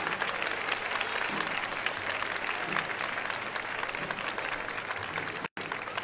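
Crowd applauding with dense, continuous clapping. The sound drops out for an instant about five and a half seconds in.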